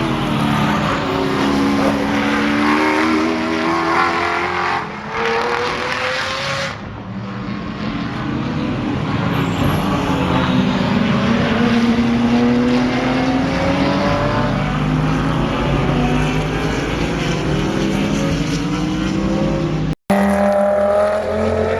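GT racing cars running at full throttle past the trackside, several engines rising and falling in pitch through gear changes. The sound cuts out for an instant near the end.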